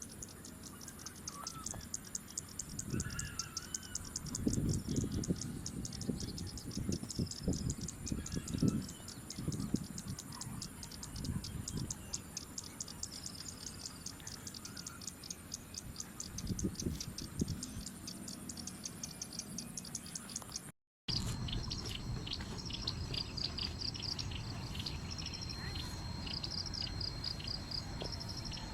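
Outdoor ambience of insects and birds: a fast, even high-pitched insect pulsing under scattered bird chirps, with low thuds and rumbles in the first part. About two-thirds of the way through the sound cuts out for a moment and comes back with a steady high insect whine and more chirping.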